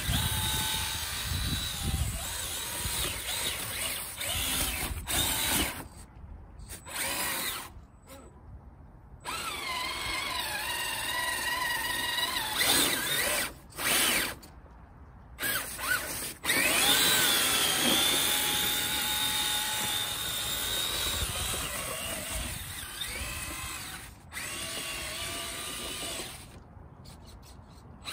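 Traxxas TRX-4 Sport RC crawler's brushed electric motor and geared drivetrain whining as it drives its stock tracks through snow. The pitch rises and falls with the throttle, and the whine stops briefly several times as the throttle is let off.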